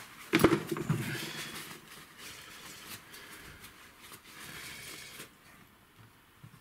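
Rustling handling noise of small parts being worked by hand, with two sharp knocks near the start; the rustling dies away after about five seconds.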